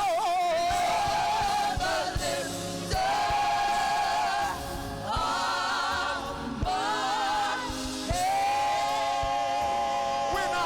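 Gospel choir singing a slow worship song, holding long sustained notes in harmony.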